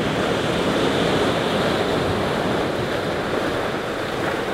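Sea waves breaking and washing on the shore: a steady rushing surf noise.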